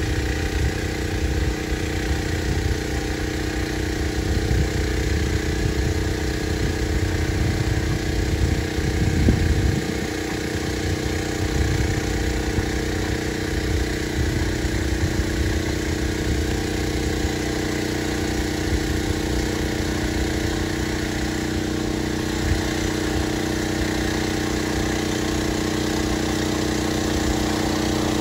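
DJI Agras T30 crop-spraying drone's six rotors humming steadily in flight while it sprays, a pitched whirring drone that grows slightly louder near the end. Wind buffets the microphone with low rumbling gusts through roughly the first ten seconds.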